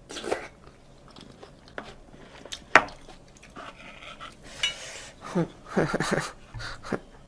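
Chopsticks and a spoon clinking and scraping against bowls and a pan during a mukbang meal. One sharp clink about three seconds in is the loudest sound.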